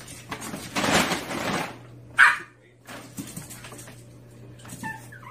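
A dog gives one short, sharp yip or bark about two seconds in, after a second-long burst of noise. A steady low hum runs underneath.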